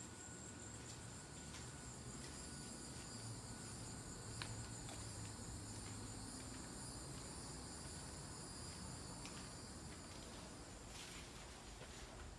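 Steady high-pitched insect chorus, a continuous shrill drone, over a low rumble, with one sharp click about four and a half seconds in.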